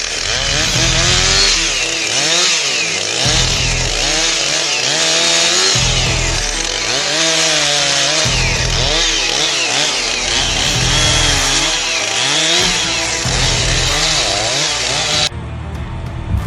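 Loud music mixed with a rough, machine-like whine whose pitch keeps rising and falling. The higher part of the sound cuts off abruptly near the end.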